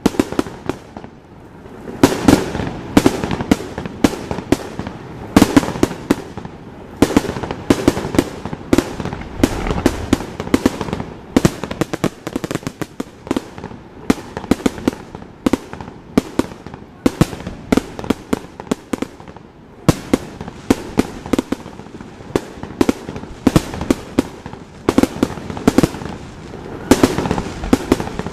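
Aerial fireworks bursting in a rapid barrage, several sharp bangs a second, with a short lull about a second in and a brief dip about two-thirds of the way through.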